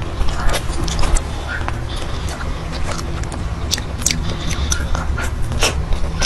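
Close-miked eating sounds: wet mouth clicks and chewing of dessert, as irregular sharp ticks over a steady low hum.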